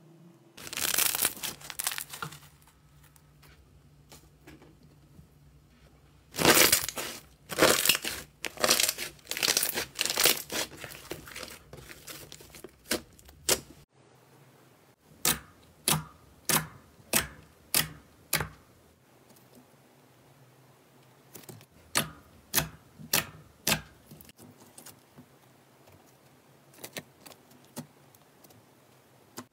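Slime being handled. First it is pressed and pulled through a metal wire-mesh grill, giving bursts of sticky crackling. Then a different slime is pressed by hand, giving two runs of sharp sticky pops at about two a second.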